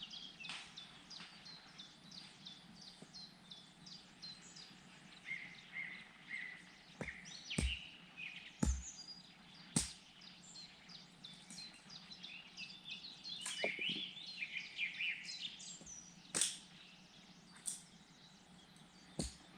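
Small songbirds chirping and trilling continuously, with about five sharp cracks from a crackling wood campfire standing out above them.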